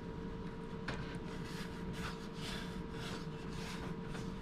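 Spatula scraping around the inside of a bread machine's baking pan, loosening a freshly baked loaf: a series of short scraping strokes, with a faint steady hum underneath.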